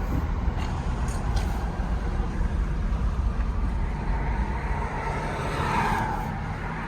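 Buick's GM 3.8-litre V6 car running steadily, now that its crank-no-start fault is cured: a low rumble with a broad hiss that swells slightly about five to six seconds in.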